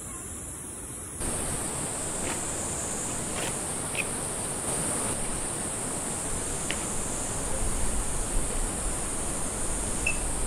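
Steady high-pitched insect chorus over background hiss, stepping up in level about a second in, with a few faint ticks.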